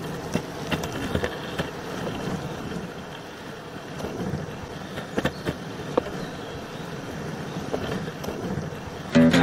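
Longboard wheels rolling on asphalt: a steady rumbling noise with scattered clacks. Guitar music comes in near the end.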